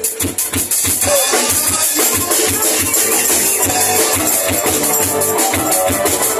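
Live band playing: a drum kit keeps a steady beat under bass and other instruments, the sound growing fuller about a second in.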